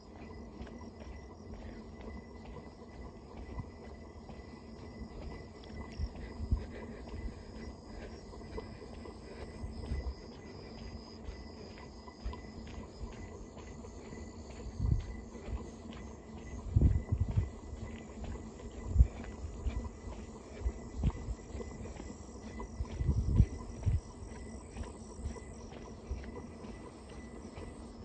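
Insects chirring steadily, a high-pitched, rapidly pulsing sound, with several short low thumps in the second half.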